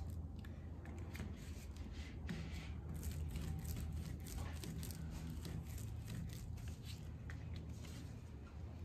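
Palms rolling a red clay coil back and forth on a tabletop: faint, soft rubbing strokes in quick succession.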